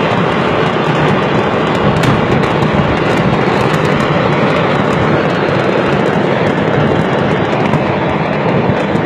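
A continuous loud roar with many sharp crackles and pops throughout: stocks of fireworks going off in a chain of detonations. Mixed with the road and wind noise of a moving car.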